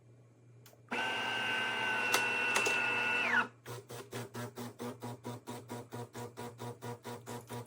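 De'Longhi Magnifica Start fully automatic espresso machine at work. About a second in, a motor runs with a steady whine for a little over two seconds, and its pitch drops as it stops. A lower hum then starts, pulsing about five times a second.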